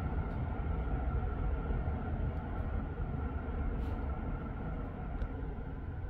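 Steady rumble of road traffic moving through a junction, heard from a distance: engines and tyres on wet tarmac blending into one continuous noise, with a few faint ticks.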